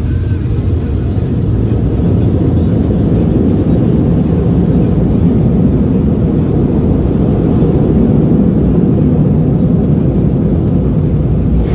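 Automatic car wash machinery heard from inside the closed car cabin: a steady, loud low rumble that swells a little past the middle.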